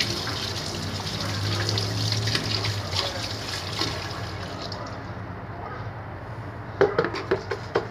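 Water running from a tap as hands and a spoon are rinsed under it; the tap is shut off about four and a half seconds in. A few light knocks follow near the end.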